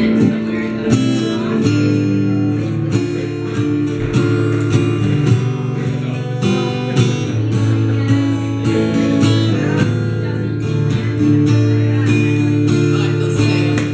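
Live band playing a rock song: acoustic guitar strumming and electric guitar over a steady drum beat.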